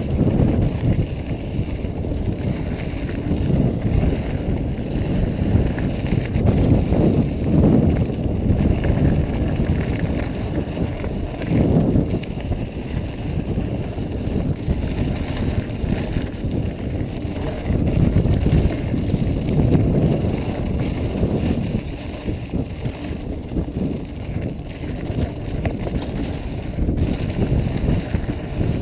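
Mountain bike riding over a rough dirt trail: the tyres rumble over dirt and rocks and the bike rattles continuously, with rumbling wind on the microphone.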